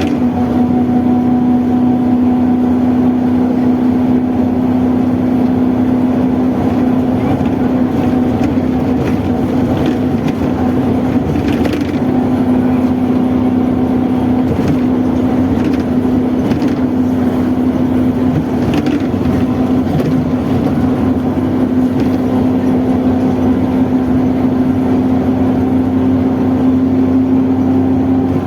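Mercedes-Benz OF-1721 bus driving at steady speed. The driveshaft (cardan) gives a loud, steady drone with one strong hum, typical of a growling cardan shaft.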